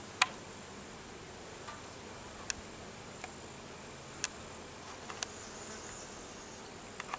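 Faint buzzing of honey bees flying around the mating nucs, with a few sharp clicks scattered through it, the loudest just after the start.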